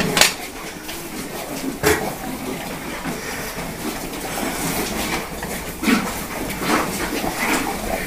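A plastic bucket knocking against a plastic feed tub as it is emptied into it, with a few sharp knocks.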